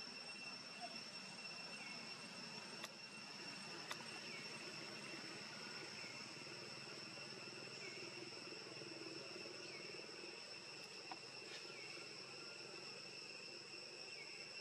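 Insects droning steadily at a high, even pitch, with a faint short chirp repeating about every two seconds and a few faint clicks.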